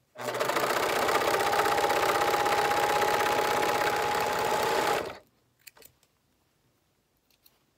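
Sewing machine running at a steady speed for about five seconds, stitching a seam, then stopping abruptly. A few faint clicks follow.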